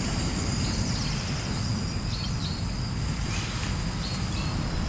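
A few faint, short, high bird chirps over a steady low rumble.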